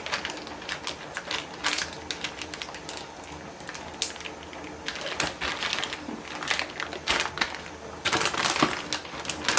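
Plastic freezer bag crinkling and crackling in irregular clicks as it is handled, the air pressed out and the bag sealed, over a faint steady hum.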